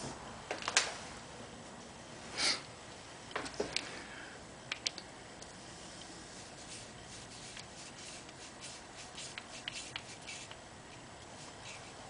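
Light clicks and taps of a metal motorcycle choke cable housing and cable being handled as a new choke cable is fed through the housing. The sharpest click comes just under a second in, with a short rustle about two and a half seconds in and smaller ticks after.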